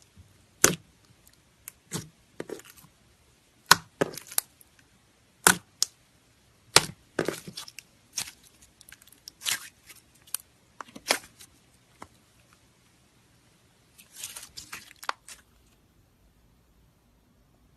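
Red glitter slime being squeezed and stretched by hand, giving sharp pops and clicks about once a second, with a run of softer crackles near the end.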